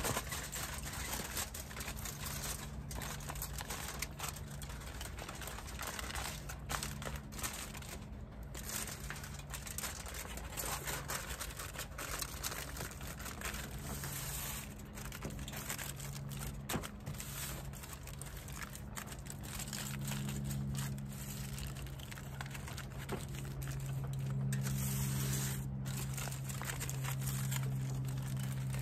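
Aluminium foil crinkling and crumpling as it is folded and pressed into a food packet, with many small crackles. A steady low hum runs underneath and grows louder in the last few seconds.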